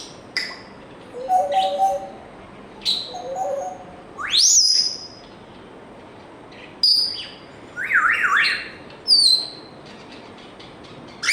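African grey parrot calling in a string of separate sounds: short clicks, a pair of low warbling tones, a loud whistle sweeping steeply upward about four seconds in, then quick up-and-down chirps and a falling chirp near the end.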